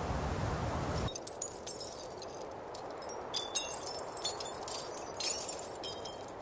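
Steady rushing noise that cuts off about a second in, followed by many quick, high-pitched clinks and short ringing chimes, like wind chimes or small pieces of glass or ice tinkling.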